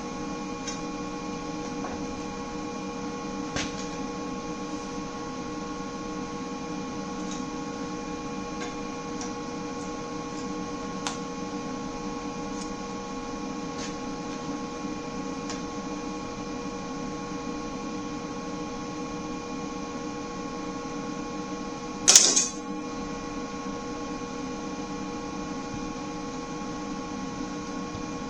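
Steady electrical hum with several fixed tones, with a few faint clicks and one brief, loud, sharp burst about three-quarters of the way through.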